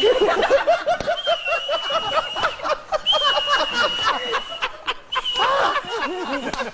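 A man laughing hard, in quick choppy bursts, over a thin steady high whistle like a boiling-kettle whistle. The whistle sounds again and again, each time for a second or more.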